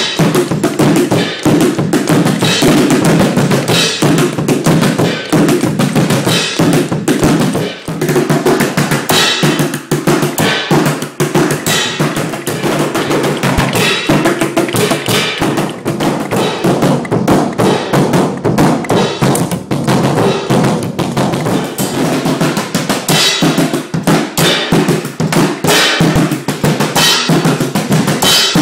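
Band music with no vocals: a full drum kit, with kick and snare, plays a busy beat over the band.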